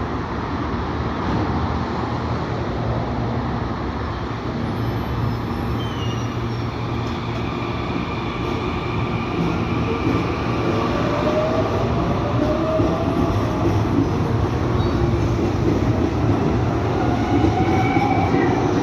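Series 7000 electric train accelerating away from a station: its traction motors growl over a steady rumble of wheels on rail. Whining tones rise in pitch as it gains speed, starting about six seconds in, and the sound grows slowly louder.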